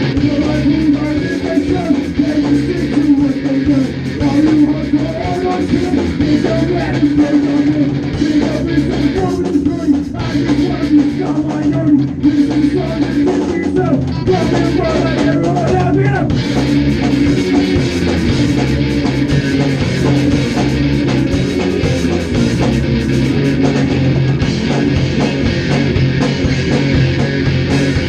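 Three-piece band playing live in a rehearsal room on electric bass, electric guitar and drum kit, with the cymbals coming in harder about halfway through.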